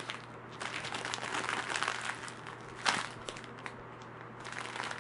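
Crinkling and crackling of a plastic wrapper as a croissant squishy toy is squeezed and handled, with a louder crackle about three seconds in.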